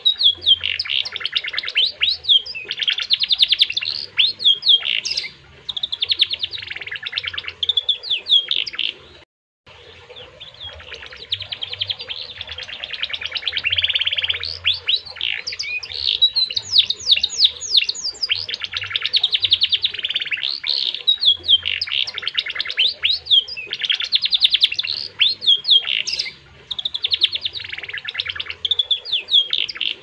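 Domestic canary singing a long, continuous song of rapid trills and quick falling notes, with one brief break a little over nine seconds in.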